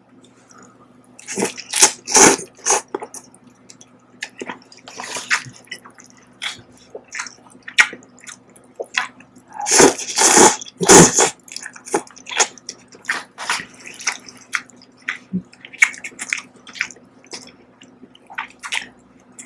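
Close-miked slurping and chewing of instant ramen noodles: loud slurps about one and a half seconds in and again around ten seconds, with wet chewing and mouth clicks in between.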